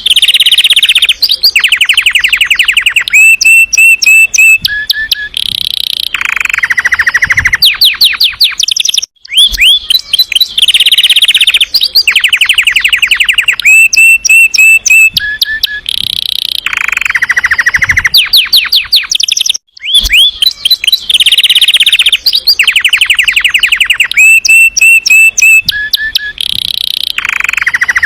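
Domestic canary singing loudly: fast rolling trills and runs of rising whistled notes. The same sequence of phrases repeats about every ten seconds, with a short break between repeats.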